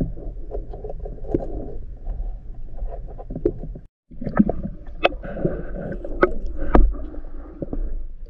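Underwater sound picked up by a camera below the surface: a muffled, steady rumble of water with scattered sharp clicks and knocks, louder and more frequent in the second half. The sound cuts out completely for a moment just before four seconds in.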